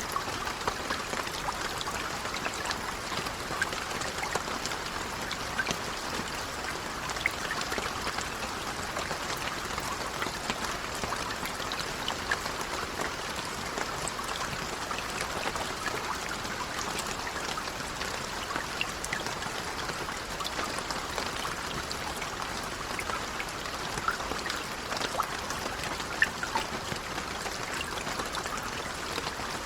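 Steady gentle rain with many individual drops pattering and ticking, a dense even wash of water sound.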